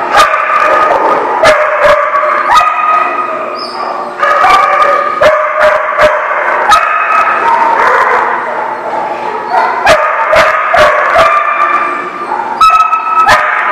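Dogs barking almost without pause, one bark running into the next.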